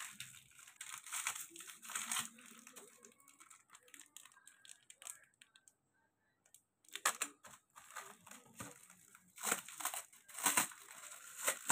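Plastic packaging crinkling and rustling in irregular bursts as a small jewellery packet is handled and opened, with a short pause around the middle.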